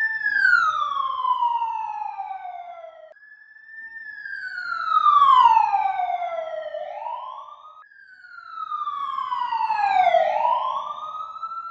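An electronic end-card sound effect: three long falling whistle-like tones with overtones, each sliding down over about three seconds before jumping back up. A rising swoosh comes in near the end of each fall.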